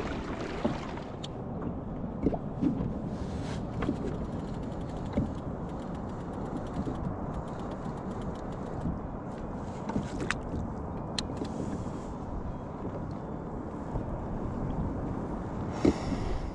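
Steady low rumble of wind and small waves against a plastic sit-on-top kayak, with scattered light knocks and ticks of gear on the hull.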